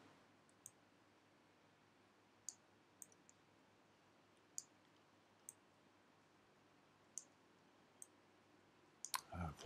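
Near silence broken by about eight faint, sharp clicks at irregular intervals: a pen stylus tapping down on a drawing tablet as handwritten letters are drawn.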